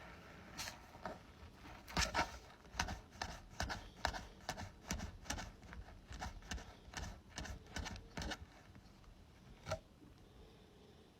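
Irregular tapping and scratching on a ball being handled, a run of sharp little clicks starting about two seconds in and thinning out after about eight seconds, with one last tap near the end.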